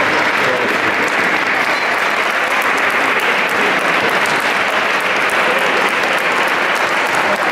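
Steady applause, many hands clapping at once.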